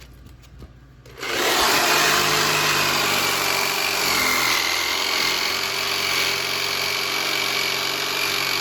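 Electric saw started about a second in and running steadily, cutting through a wooden spindle, with a steady high whine over the noise of the blade.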